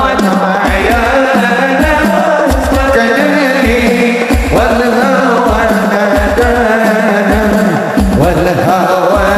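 Sholawat devotional singing in Arabic, a male lead voice carried over hadroh frame-drum accompaniment, with a steady low drone and a deep drum beat falling about every half to three-quarters of a second.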